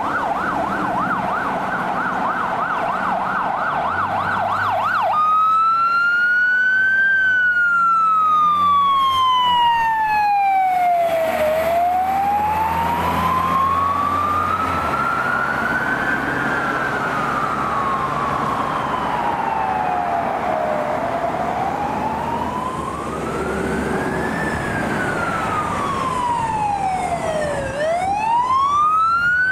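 Fire truck siren sounding a fast yelp for about the first five seconds, then switching to a slow wail that rises and falls over several seconds at a time.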